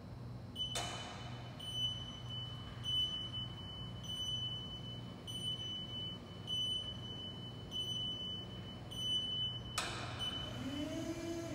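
An automated guided vehicle's (driverless pallet stacker's) warning beeper sounds steady, high-pitched beeps about once a second as it travels towards a pedestrian. A steady low machine hum runs underneath, and there is a brief rush of noise about a second in and again near the end.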